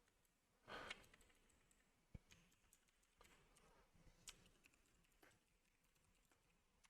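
Faint computer keyboard typing: a few scattered keystrokes, with a short soft hiss about a second in.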